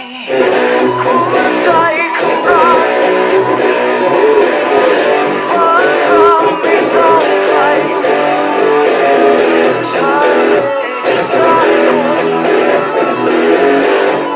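Electric guitar playing a lead solo in a rock song, with string bends and sustained notes, over a full band with drums.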